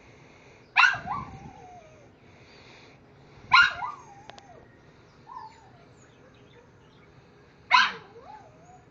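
Three short, sharp animal cries about three seconds apart, each trailing off into a wavering, falling whine, with a fainter call between the second and third.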